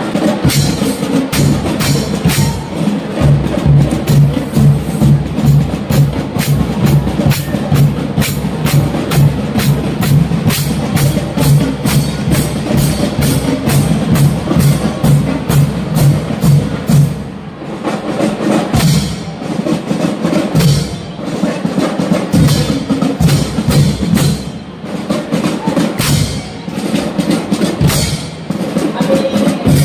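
Music with a steady, driving percussion beat of drums and sharp clicking strokes.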